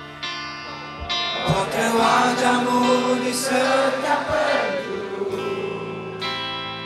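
Live rock band playing through a festival PA, electric guitars with voices singing, heard from within the crowd.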